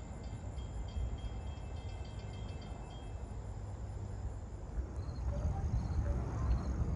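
Low, steady rumble of a small single-engine propeller plane flying over, growing a little louder toward the end.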